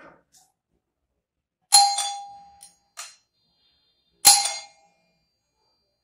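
A cheap ding-dong doorbell rings twice, being tested after installation and working. Each ring is a sharp metallic strike that rings on and fades over about a second. The two strikes are about two and a half seconds apart, with a fainter click between them.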